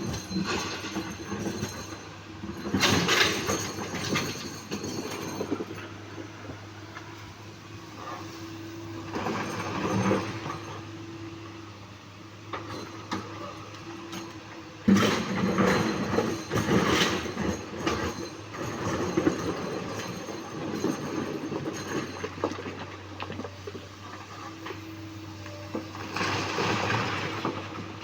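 Komatsu PC200-8 excavator's diesel engine running steadily under hydraulic load, with several bursts of heavy clattering and grinding as boulders scrape against the bucket and each other. The sharpest clatter comes about halfway through.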